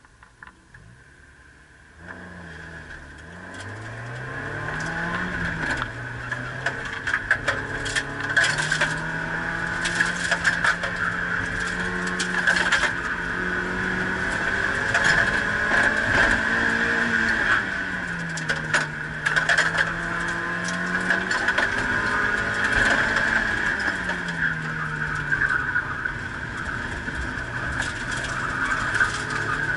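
Car engine pulling away about two seconds in, then rising and falling in pitch again and again as the car is driven hard through an autocross course. Frequent sharp knocks and rattles sit over steady road and tyre noise.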